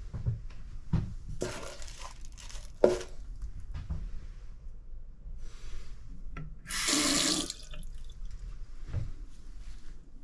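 A bathroom washbasin's mixer tap turned on briefly, water running into the ceramic basin for under a second about seven seconds in. Before it come scattered handling rustles and one sharp knock near three seconds.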